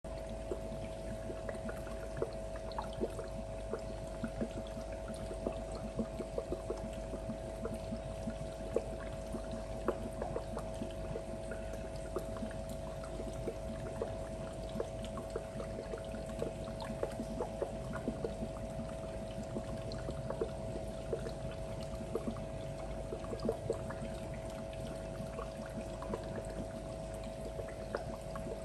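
Aquarium filter running: water trickling and splashing steadily, with a constant hum and frequent small, irregular pops.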